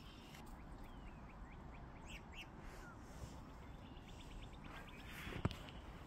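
Faint calls of small birds: scattered short chirps, then a quick run of short, evenly spaced notes. One crunching footstep in snow near the end.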